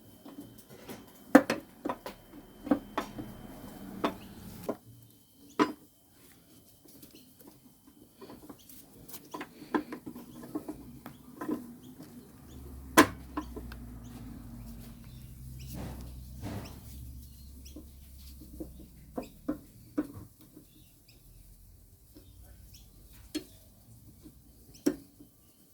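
Scattered clicks and knocks of metal and plastic mower parts being handled and fitted, with a low hum for several seconds in the middle.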